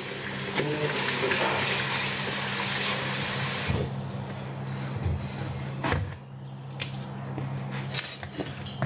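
Water running in a steady stream for about four seconds, then cut off, over a steady low hum. A few light knocks follow.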